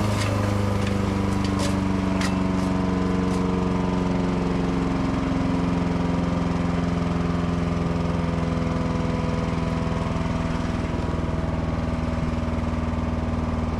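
Forest Master FM14DD wood chipper's engine running at a steady speed, with a few sharp clicks in the first few seconds.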